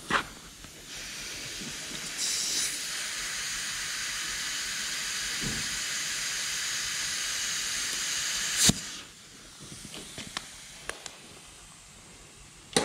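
Compressed air hissing steadily through an air chuck held on a flat tire's valve stem, inflating the tire. The hiss starts about a second in, grows louder a second later, and cuts off with a click about nine seconds in, leaving a few faint clicks.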